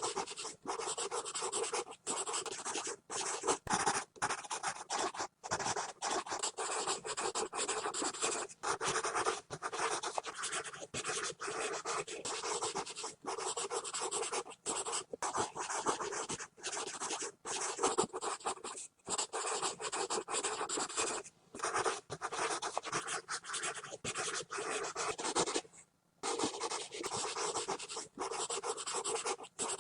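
Pencil scribbling fast on paper: a continuous scratchy rasp of rapid strokes, broken by many brief pauses and one longer pause about 26 seconds in.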